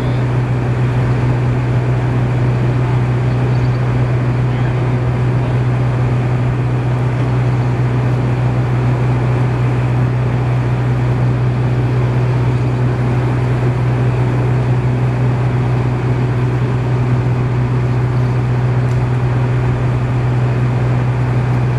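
A small engine running steadily at constant speed, giving a loud, even low drone that does not change.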